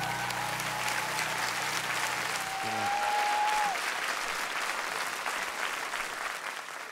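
Concert audience applauding at the end of a song. The band's last sustained chord rings under the clapping and dies away about two and a half seconds in, and a single held whistle rises from the crowd around the middle.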